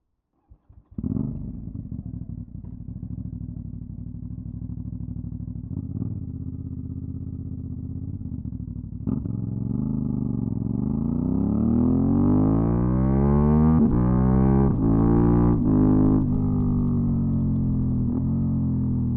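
Aprilia Dorsoduro 750 V-twin with a LeoVince SBK exhaust starting up about a second in after a few short clicks, then idling steadily. From about ten seconds in the engine speed rises, with a couple of brief dips near fifteen seconds, before settling to a steady run.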